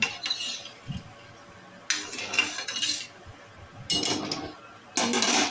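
Metal perforated spoon scraping and stirring sugar and water in a steel pan, in several separate bursts of scraping.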